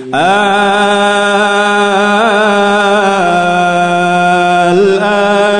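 A man reciting the Quran in melodic chanted tajwid, holding one long vowel with a rising glide at the onset, a slight waver a little past two seconds in, and a step down in pitch about three seconds in.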